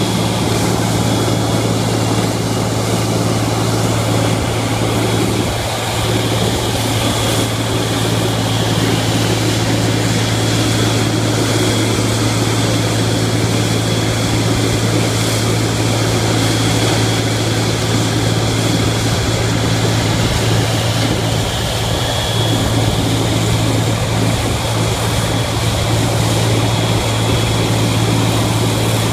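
Large diesel-powered portable grinder running at a steady, loud drone while an excavator feeds it demolition debris.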